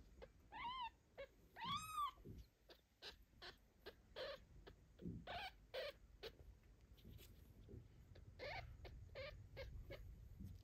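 Newborn kitten squeaking for its mother after being left alone. Two clear cries that rise and fall come in the first two seconds, then a string of shorter, fainter squeaks.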